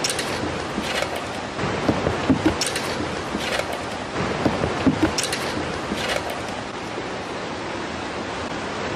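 Surf washing on a rocky shore, a steady rush of waves with wind on the microphone, and a few brief sharp clicks in the first several seconds.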